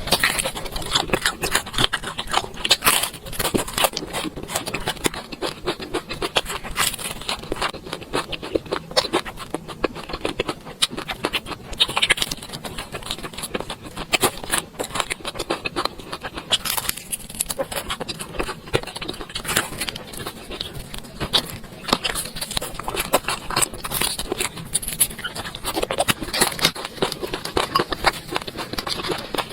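Close-miked eating sounds: steady wet chewing and mouth clicks, mixed with utensils scraping and tapping against the bowls.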